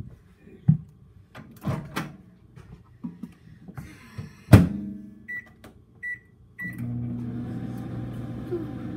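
A microwave oven being used: a few knocks and a loud clunk, then three short keypad beeps, then the oven starts running about seven seconds in with a steady hum.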